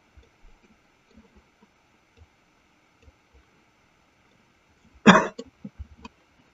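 A person coughs once, briefly, about five seconds in, with a few faint clicks around it.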